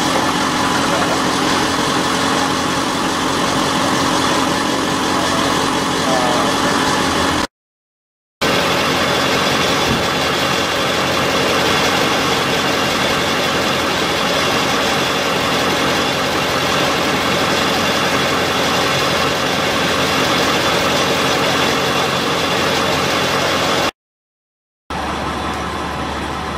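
A vehicle engine idling steadily nearby, an even loud hum. It is broken twice by short silences, and after the second it is quieter.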